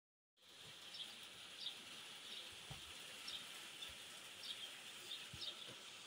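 Faint steady hiss of a light rain shower, with a bird calling in short, high, repeated chirps about once a second and a few soft low thumps.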